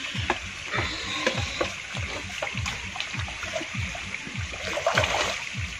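Water sloshing and gurgling as a plastic bucket is dipped into a shallow creek and fills, loudest about five seconds in. Underneath, a low sound falling in pitch repeats about three times a second.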